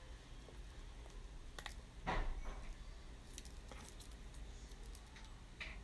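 Faint handling sounds from a plastic cosmetic cream jar: scattered fingernail clicks and one short rustle about two seconds in, as its wrap and seal are picked at.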